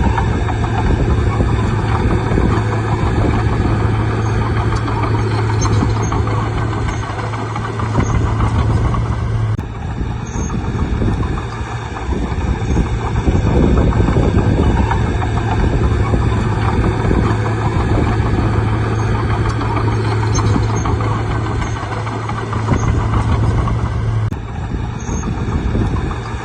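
Bulldozer's diesel engine running with a steady low drone, dipping briefly twice.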